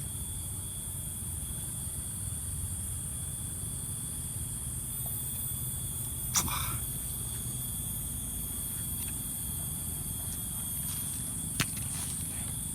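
Steady high-pitched chirring of night insects such as crickets, with two short sharp snaps or clicks, one about halfway through and one near the end.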